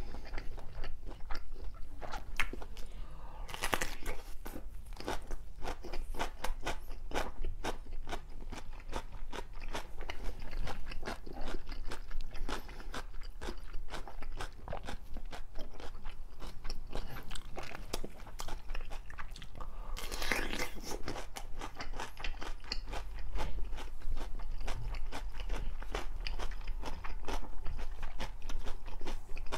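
Close-miked crunching and chewing of a whole raw cucumber, a steady run of crisp, wet bites and mouth sounds.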